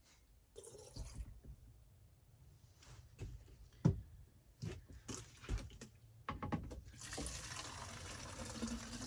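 A plastic water jug thumps onto a wooden counter, with scattered clunks of handling, then water runs from the jug's spigot into a bottle, a steady splashing hiss from about seven seconds in.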